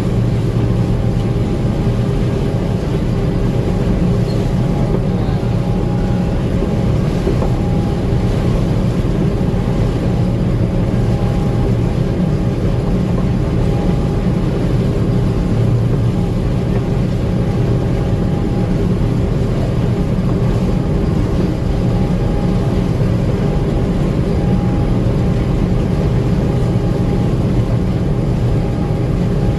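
Gleaner M2 combine running steadily while harvesting corn: a constant engine and machinery hum with a steady whine.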